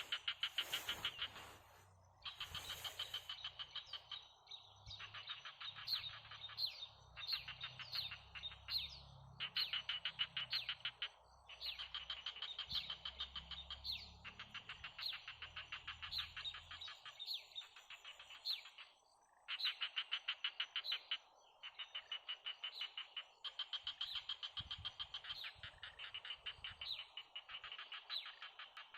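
Frogs calling in repeated trains of rapid, high-pitched pulses, each train lasting a second or two with short gaps between, over a low rumble that fades out about halfway through.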